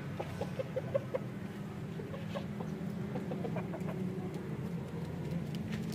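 Aseel chickens clucking: a quick run of short clucks at the start, then scattered single clucks, over a steady low hum.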